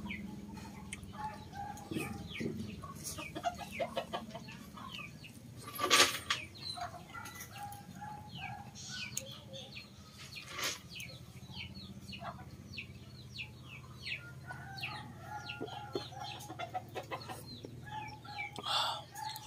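Chickens clucking in the background, with many short quick chirps and repeated clucks throughout over a steady low hum. A sharper knock stands out about six seconds in and another about eleven seconds in.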